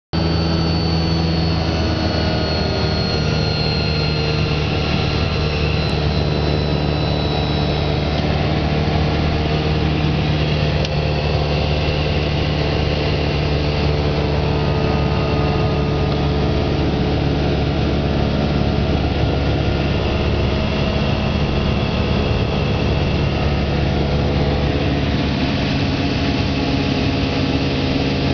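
Steady drone of a Lake amphibian seaplane's single pusher piston engine and propeller, heard from inside the cabin while descending toward a water landing.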